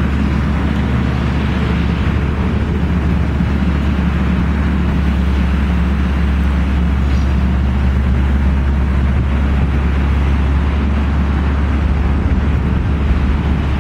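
Link-Belt 1600Q excavator's diesel engine running steadily, a constant low drone with no change in pitch or level.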